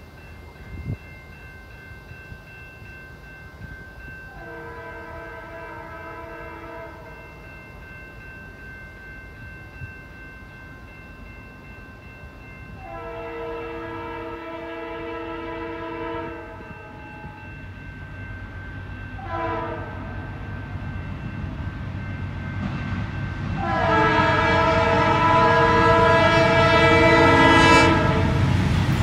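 The old multi-note horn of CN 2156, lead locomotive of a freight train, sounding the grade-crossing signal: long, long, short, long, the last blast held longest. The rumble of the approaching diesel locomotives grows steadily louder through the final seconds.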